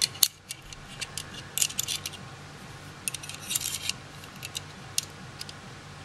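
Stainless-steel Leatherman Surge multitool being handled: scattered metallic clicks and clinks as its saw blade and other tools are folded and unfolded, coming in short clusters and then single ticks near the end.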